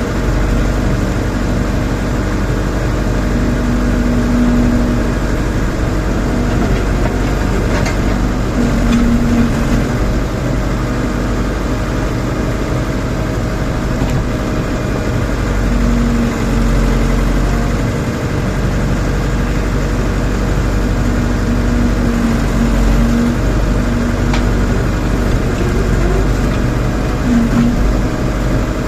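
Rondon backhoe loader's diesel engine running steadily, with a higher tone that keeps coming and going as the machine works.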